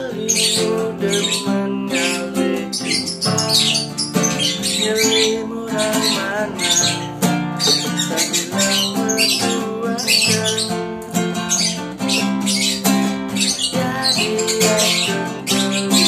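A lovebird giving repeated high-pitched squawks and chirps, singing along with an acoustic guitar being played.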